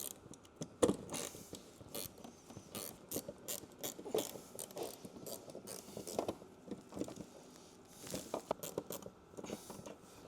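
Hand ratchet clicking in short strokes as a seized, rusted fixing is worked loose, with scattered knocks of tools against the trim.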